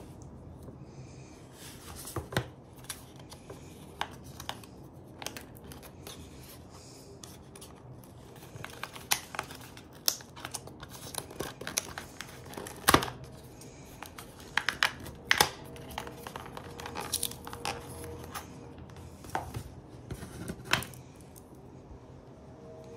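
Hands handling a watch box's cardboard packaging and insert, with a silicone strap, on a wooden table: irregular clicks, taps and rustling, busiest in the second half, with the sharpest knock about halfway through.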